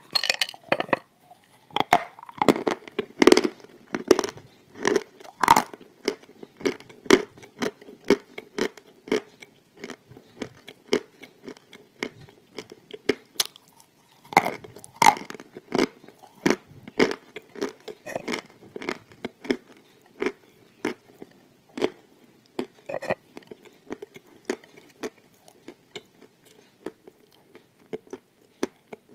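Crisp wafer sheets bitten and chewed close to the microphone: crunchy bites at the start and again about fifteen seconds in, with steady crunching chews about twice a second between, growing softer toward the end.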